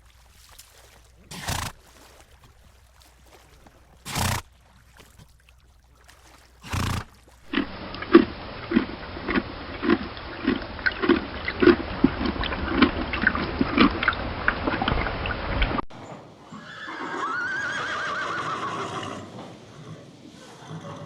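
A horse snorting three times, about two and a half seconds apart. Then a horse chewing feed, with a steady crunch about every two-thirds of a second. Then, after an abrupt change, horses in a paddock with one whinny.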